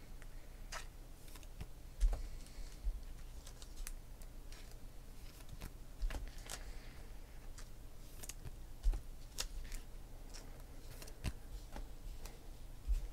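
Trading cards being handled and flipped through, with light clicks and soft rustles at irregular intervals.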